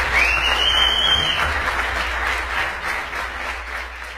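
Crowd and performers applauding, with one loud whistle that rises, holds and falls off over about a second near the start. The applause fades out toward the end.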